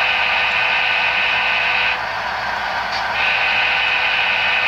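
Diesel locomotive horn sounding two long blasts, the railroad signal to proceed as the train departs, over a steady running noise.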